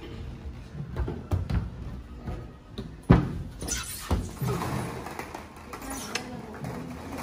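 Thumps and knocks from a toddler's hands and knees on a wooden slide beside a ball pit, with plastic balls shifting; a sharp knock about three seconds in is the loudest.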